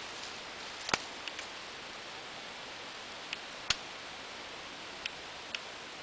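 Steady hiss with several short, sharp clicks or snaps scattered through it, the two loudest about a second in and just past the middle.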